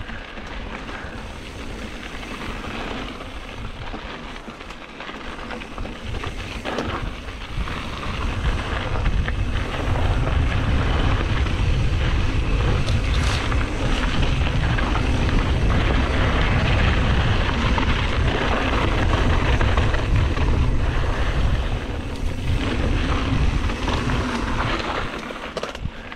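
Wind buffeting the rider's camera microphone over mountain bike tyres rolling on dirt singletrack, with scattered knocks from bumps in the trail. The wind rumble grows much stronger about a third of the way in and eases near the end.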